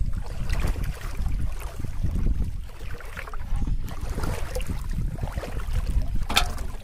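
Wind buffeting the microphone over water sloshing around a person wading and pushing an aluminium basin through a pond. A brief sharp sound stands out near the end.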